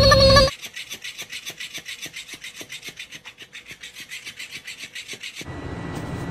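Rapid, even rasping scratches, about seven strokes a second, like scratching on fabric. They stop abruptly near the end, and a steady outdoor hiss follows.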